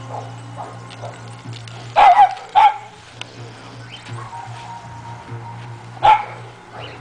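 Dogo canario (presa canario) puppy barking in short bursts: two about two seconds in, half a second apart, and one more about six seconds in, over background music.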